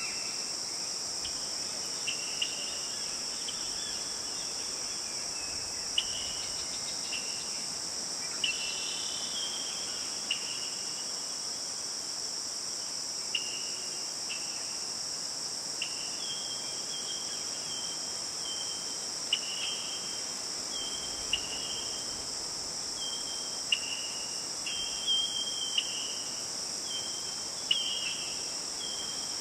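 Steady high-pitched drone of insects such as crickets, with short chirps repeating every second or two.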